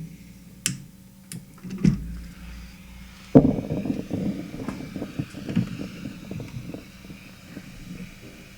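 A few sharp clicks of handling, then a heat gun switched on about three seconds in, its fan blowing air steadily while the element warms up for reflowing solder.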